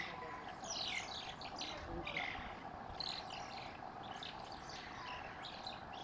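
Banded mongooses giving rapid, high-pitched chirps and twitters, many overlapping, as the group mobs a snake. A steady background hum runs underneath.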